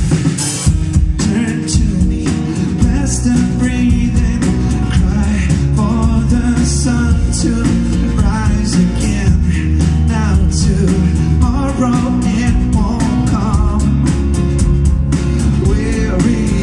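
Live acoustic rock band playing: strummed acoustic guitars over electric bass and drums, with a man singing lead from about two seconds in.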